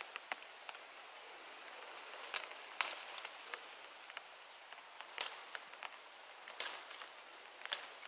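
Limes being picked by hand from a lime tree: leaves rustling and a handful of sharp snaps of fruit stems breaking, at uneven intervals.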